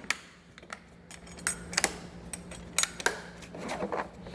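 Scattered light metallic clicks and clinks of hand tools being handled in a tool cart, about eight in all, over a faint steady low hum.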